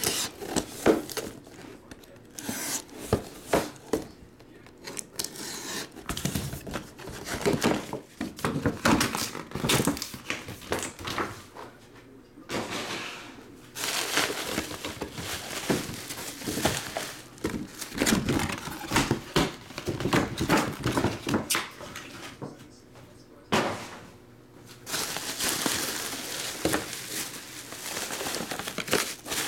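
Bubble wrap crinkling and rustling in irregular bursts as hands unwrap and handle small cardboard trading-card boxes.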